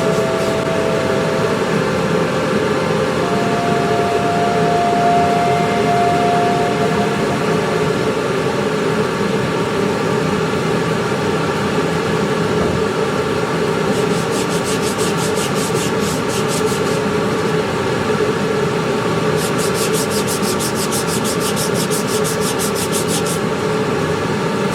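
Power sanding on wood: a steady, loud rubbing hiss of a sander working a surface. A fast, high ticking joins in twice in the second half.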